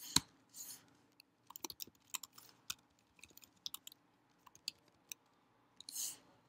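Typing on a computer keyboard: irregular keystroke clicks, some louder than others, with short pauses between bursts. A short hiss sounds about six seconds in.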